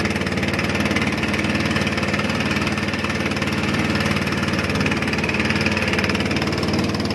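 Small fishing boat's engine running steadily at an even, unchanging speed.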